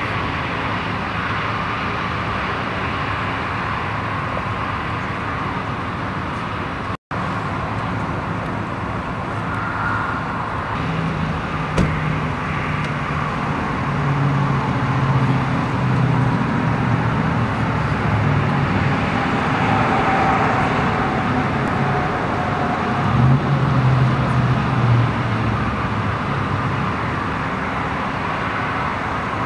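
Steady road-traffic noise from passing cars, with a low engine hum that comes and goes through the middle. There is one brief dropout a quarter of the way in and a single sharp click soon after.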